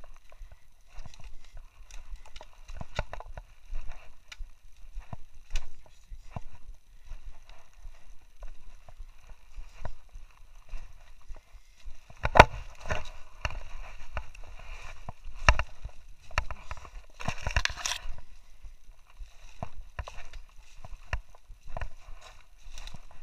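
Irregular crunching and knocking of travel over a rocky dirt trail, with a few louder knocks about halfway through and a short scraping rush about three-quarters of the way in.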